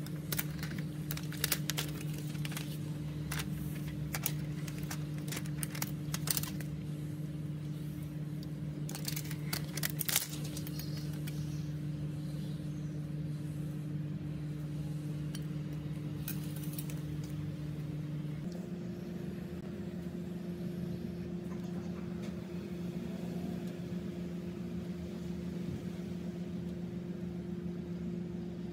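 A steady low machine hum from bench equipment, with scattered light clicks and taps of small metal tools in the first ten seconds. About eighteen seconds in, the hum steps slightly higher in pitch.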